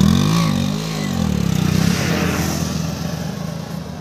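Motorcycle engine heard close to its exhaust, revved twice in quick throttle blips, then settling back to a steady idle that grows fainter near the end.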